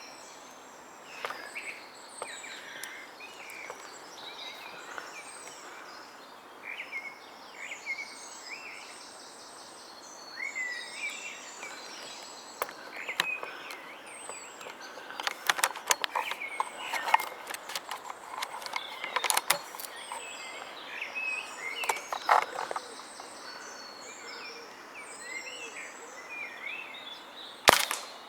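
Small birds chirping and singing over a quiet rural background, with scattered faint clicks in the middle and a single sharp crack near the end.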